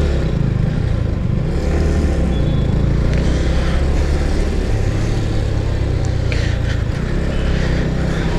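Yamaha MT-15 motorcycle's single-cylinder engine running steadily as the bike is ridden at low speed, its note shifting slightly with the throttle.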